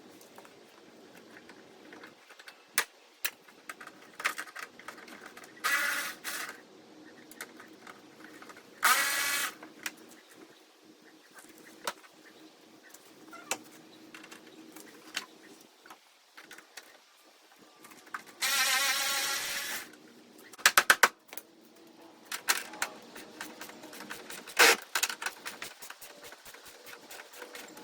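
Tool work on car body fasteners during bumper and fender removal: many sharp clicks and taps, with a few short bursts of a small power tool. The longest burst runs about a second and a half, a little past halfway.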